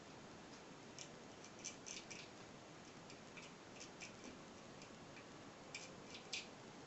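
Faint, irregular light clicks and ticks, about a dozen, in small clusters over quiet room tone.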